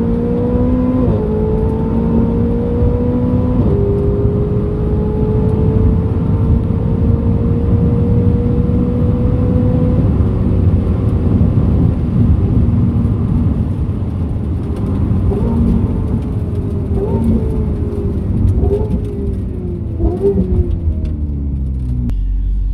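Ferrari 488 Spider's twin-turbo V8 pulling at full throttle from inside the cabin, changing up about one and four seconds in, then climbing steadily through its top gear on a half-mile drag run. In the last seven seconds it comes off the throttle and slows, with four blipped downshifts.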